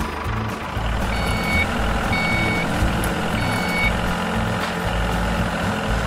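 Sound effect of a heavy vehicle's engine running, with a reversing alarm beeping three times, each beep about half a second long.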